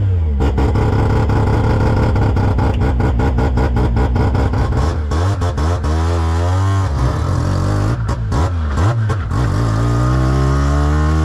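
Rotary engine of a stadium race truck running at idle, blipped up and down a few times midway, then rising steadily in pitch near the end as the truck pulls away, heard from inside the cabin.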